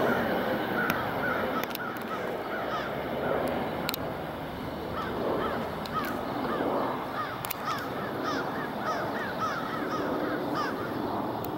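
A flock of crows cawing, with many short calls overlapping and repeating, over a steady low rumble.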